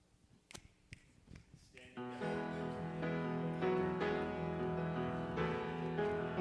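A few faint clicks and knocks, then about two seconds in a piano starts playing the introduction of a worship song, with sustained chords.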